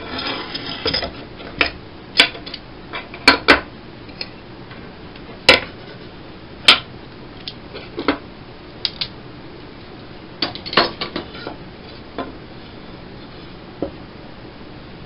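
A steel C-clamp being handled: unscrewed, lifted off two wooden strips and set down, with the clamp and the wood knocking on a wooden tabletop. A scattering of sharp clicks and clacks, loudest in the first seven seconds, with a short flurry about ten and a half seconds in.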